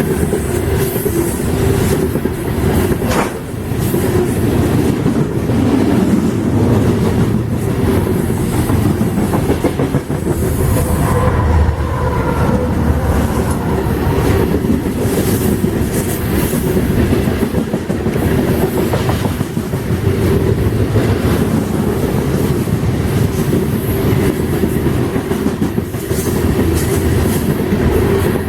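Freight train cars rolling past, their wheels clattering over the rail joints in a steady, loud run, with a faint wheel squeal about halfway through.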